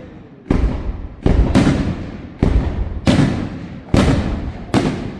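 Fireworks shells bursting overhead: about seven sharp bangs in quick, uneven succession, each trailing off in a rumbling echo.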